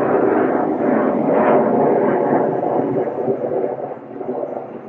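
Jet airliner engines running, a loud steady rush that fades over the last couple of seconds.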